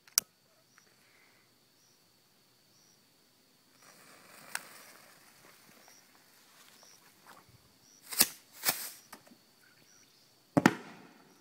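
Two lit fireworks thrown into water: a fizzing hiss as one burns with a crack in it, then two sharp bangs about half a second apart, and a third loud bang near the end that trails off in an echo.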